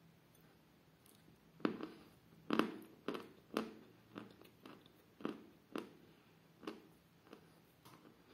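Close-up chewing of a mouthful of 'Damsky Kapriz' edible chalk: crisp crunches about twice a second, starting about a second and a half in, loudest in the first few bites and then softening as the chalk breaks down.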